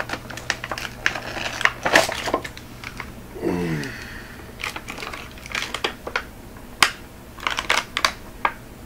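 Plastic blister packaging of a diecast model car being pried and cracked open by hand: a run of sharp clicks and crackles. A short murmur from a man comes about three and a half seconds in.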